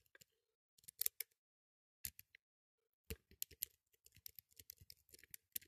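Faint, scattered metallic clicks of a lock pick working the pin stack of a small brass four-pin padlock under light tension: a few isolated ticks, then a quicker run of small clicks in the second half as the pins set toward a full set.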